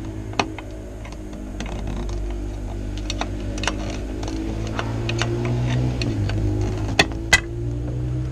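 Light metallic clicks from a 1962 VW Beetle's emergency brake lever as its ratchet pawl is worked back onto the toothed sector and the lever is dropped back into place, with two sharper clicks about seven seconds in. A steady low hum runs underneath.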